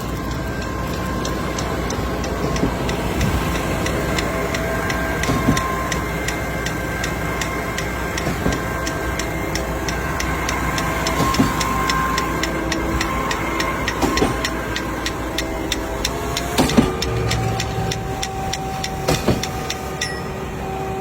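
Steady mechanical rumble with several held tones, overlaid for much of the time by fast, even clicking at about four clicks a second, with a few sharper knocks near the end.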